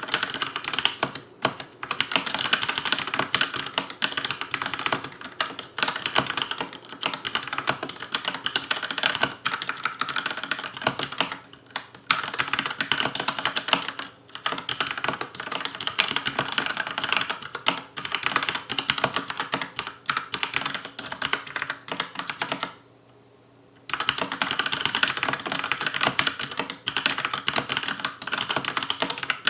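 Fast continuous touch-typing on a Logicool K835 tenkeyless mechanical keyboard with TTC linear red switches, a dense clacking run of keystrokes. It breaks off for about a second a little over two-thirds of the way through, then resumes.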